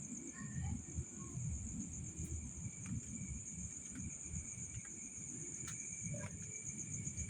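Night-time insect chorus: a steady, high-pitched pulsing trill with a fainter, lower steady trill beneath it. Under it runs a low, uneven rumbling noise, with a few faint clicks.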